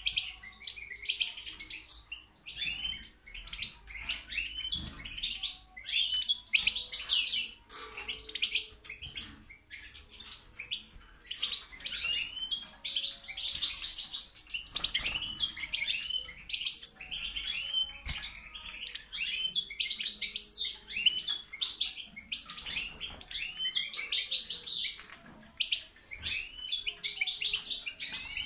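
Several caged European goldfinches singing and twittering together, a continuous dense chatter of fast, high, liquid notes.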